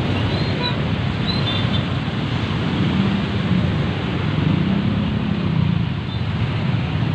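Steady wind noise buffeting the microphone while riding a motor scooter slowly through congested traffic, with the low running of scooter engines all around.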